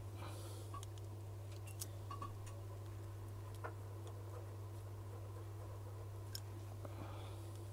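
Steady low electrical hum with a few faint, sharp clicks scattered through it: small metal tools and phone parts being handled during the reassembly of an iPhone.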